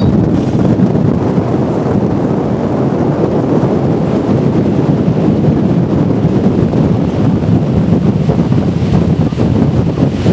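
Strong wind blowing across the microphone: a loud, steady rumbling noise with small gusty flutters and no clear pitch.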